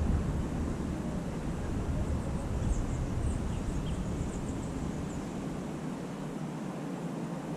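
Outdoor background of steady low rumbling noise with a run of faint, high, short bird chirps about three seconds in.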